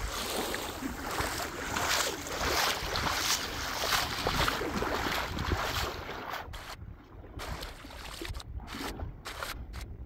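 Sea water washing in at the shore with wind rumbling on the microphone, a steady noisy hiss that thins out in patches for the last few seconds.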